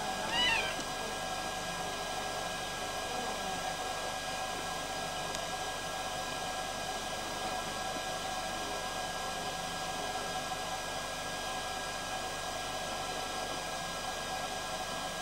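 A cat's single short, high mew about half a second in, over a steady hiss with a faint hum.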